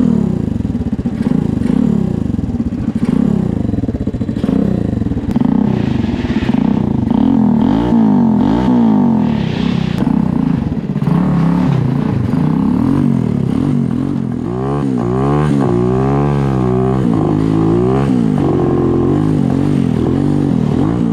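Drift kart's 125 cc YCF pit-bike engine running and revved up and down again and again, its pitch rising and falling.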